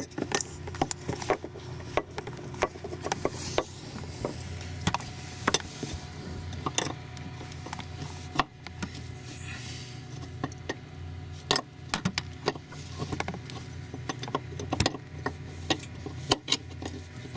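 Irregular metallic clinks and knocks of hand tools working on fittings in a sailboat's engine compartment, over a steady low hum.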